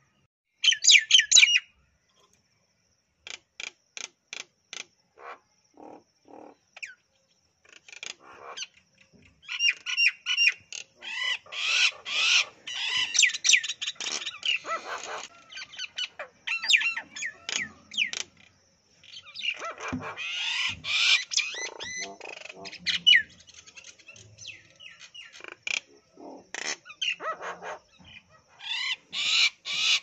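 Common mynas calling at close range: a varied, irregular run of quick sharp chattering notes and whistles in bursts, with lower, harsher notes mixed in.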